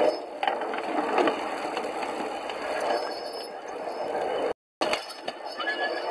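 Pedal-powered 5-inch gauge rail car rolling along the track: a steady clatter of its wheels on the rails and its pedal drive mechanism, with scattered clicks. The sound drops out briefly about four and a half seconds in.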